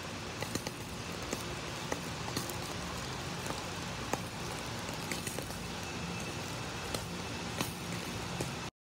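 Lump charcoal fire crackling under scallop skewers: a steady hiss with frequent sharp pops, cutting off suddenly near the end.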